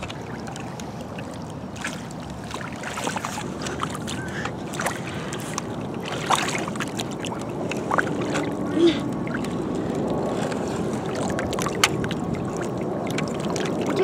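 Shallow water sloshing and splashing as a toy excavator's bucket and tracks are dipped and pushed through it. Scattered small clicks and splashes sit over a steady wash of water and wind.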